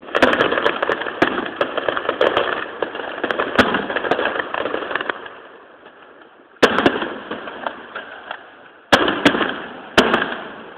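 Aerial firework shells bursting: a dense run of crackling pops for the first five seconds or so that fades out, then single sharp bangs about six and a half, nine and ten seconds in, each dying away.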